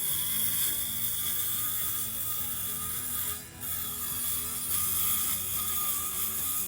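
Roofing tear-off: scraping, rubbing and prying of shingles and wood as the damaged section of roof is ripped out, with a brief break about halfway through.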